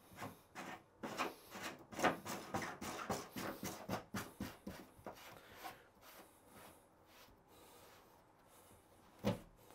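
Plastic shower drain parts, the rubber gasket and slip sleeve, being handled and pushed onto the drain: a run of short rubbing scrapes and clicks, quieter after about six seconds, with one sharp knock near the end.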